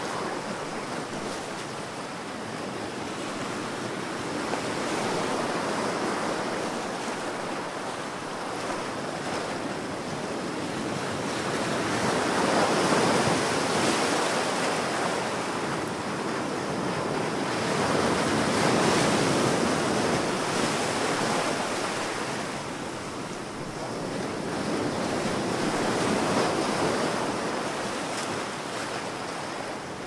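Ocean surf breaking and washing, a steady rush of water that swells and eases roughly every six to seven seconds.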